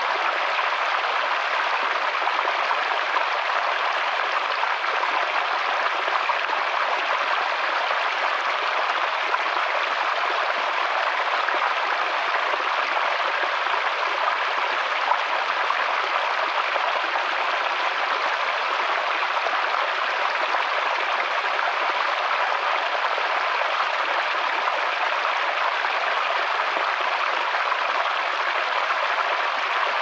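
Small woodland stream cascading over rocks into a shallow pool: a steady, even splashing rush of water.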